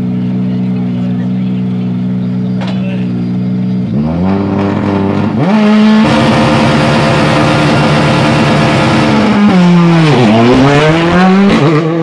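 M-Sport Ford Fiesta rally car's turbocharged four-cylinder engine, idling steadily at first, then blipped twice about four and five seconds in. It is then held at high revs with the anti-lag system popping and crackling, drops sharply near ten seconds and climbs again.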